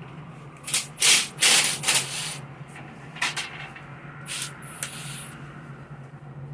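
Several short hissing, rubbing bursts from cleaning or lubricating work on an accordion shutter, the loudest about a second in, over a steady low hum.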